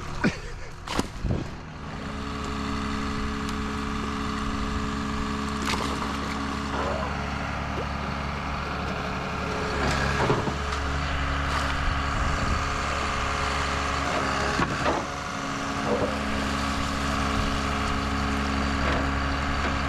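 Log forwarder's diesel engine running steadily, with a few sharp knocks in the first couple of seconds and occasional knocks after.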